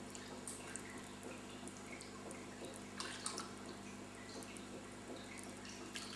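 Aquarium water trickling and dripping: many small plinks and drips, a few louder ones about three seconds in, over a steady low hum.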